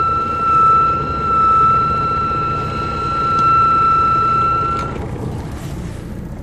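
MCI D4000 coach's Detroit Diesel Series 60 diesel engine running with a low rumble under a steady high-pitched whine. The whine cuts off suddenly about five seconds in, and the sound gets a little quieter.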